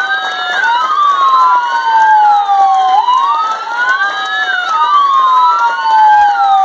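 Sirens of several police vehicles wailing together, out of step with each other, each sweeping up and down in pitch over a couple of seconds.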